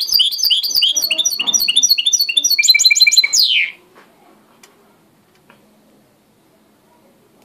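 A white mixto (a finch × canary hybrid) sings a fast phrase of rapid repeated high chirps. The phrase ends with a quicker trill and a falling sweep just under four seconds in, and then the song stops.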